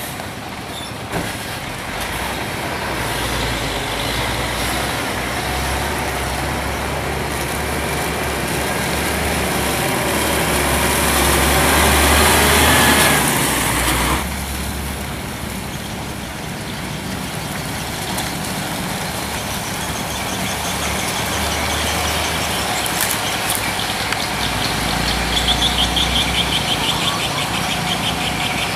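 Diesel engines of heavily loaded log trucks running as they pass slowly on a dirt road, the noise building for about twelve seconds and cutting off abruptly about fourteen seconds in, then steady engine noise again. A pulsing high squeal comes near the end.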